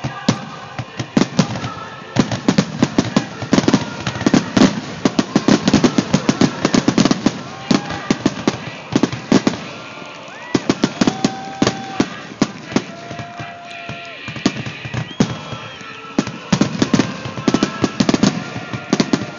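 Aerial fireworks display: a dense run of bangs and crackles as many shells burst in quick succession, with a few short whistling tones in the middle.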